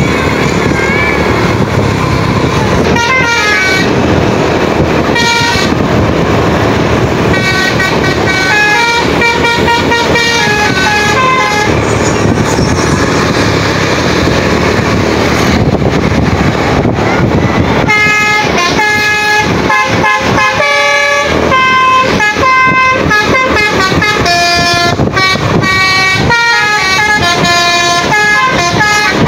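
Basuri telolet musical air horn on an SJM Trans tour bus playing a tune of quick stepped notes, beginning about three seconds in, pausing briefly past the middle, then busy again, over the bus's engine and road noise.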